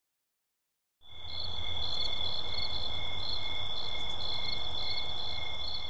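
Crickets chirping: a steady high trill with pulsing chirps over it, fading in about a second in and then holding level.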